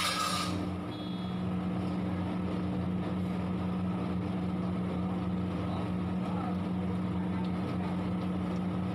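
Steady low mechanical hum of commercial kitchen machinery under a large pot of curry, with a brief loud rush of noise at the very start.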